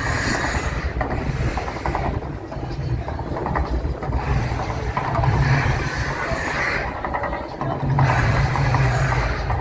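The Mirage volcano eruption show: rushing surges of gas-fired flame effects over a deep, steady rumble. It swells three times: at the start, in the middle and near the end.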